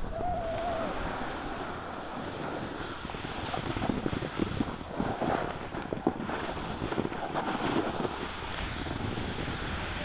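Wind buffeting the microphone while sliding fast down a packed-snow ski slope, with rough scraping and knocks of the ride over the snow that come thickest in the middle of the run.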